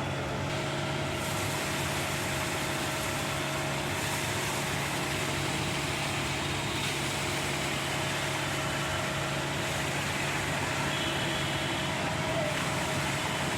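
Transit mixer truck's diesel engine running steadily while its drum turns to discharge concrete down the chute.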